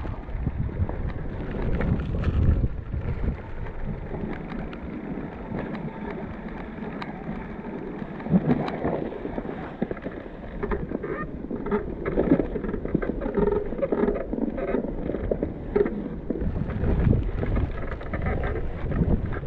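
Wind buffeting the microphone of an action camera carried on an e-bike ride through snow: an unpitched rumble with gusts at the start and again near the end, and a quieter rustling stretch in between.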